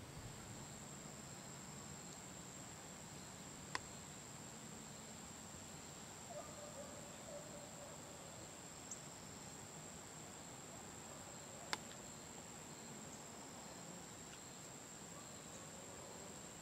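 Evening insect chorus, a steady high-pitched chirring, with two sharp clicks, one about four seconds in and one near twelve seconds.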